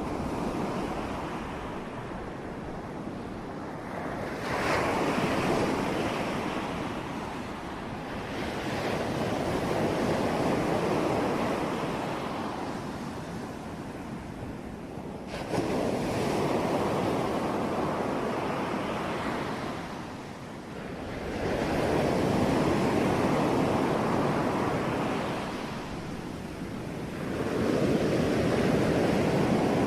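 Ocean waves breaking on a shore, surging in and washing back, with a new wave breaking about every five to six seconds.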